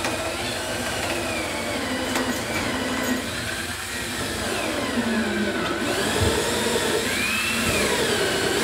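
Cordless drill boring into a pine board, its motor whine rising and falling in pitch as the load and trigger change.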